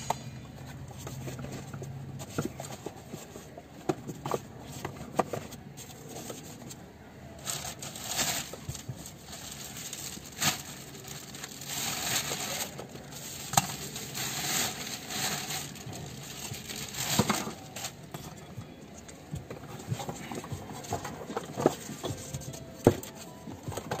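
Scattered light clicks, taps and short rustles of handling noise as a finger works the touchscreen of an Android car stereo, with no music playing.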